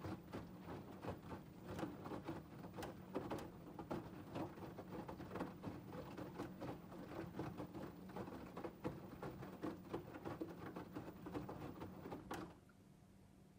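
LG TurboWash front-loading washing machine drum tumbling wet laundry while filling, a busy patter of splashes, soft thuds and clicks over a low steady hum. The tumbling stops abruptly near the end, leaving only a faint hum.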